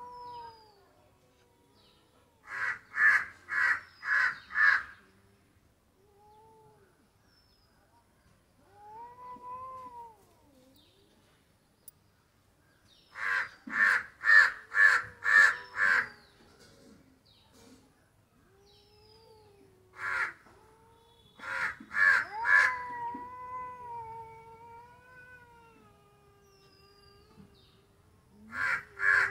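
Cats meowing, with drawn-out, rising-and-falling meows and one longer wavering one, against a crow cawing. The crow's calls are louder and come in four runs of five or six rapid harsh caws.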